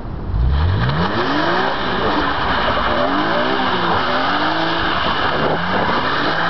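BMW M3 drifting: the engine revs climb four or so times over a steady loud tyre squeal that sets in about half a second in.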